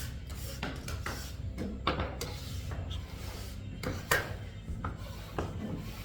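Hands kneading fresh pasta dough, irregular rubbing and pushing strokes against the work surface, with a sharper knock about four seconds in.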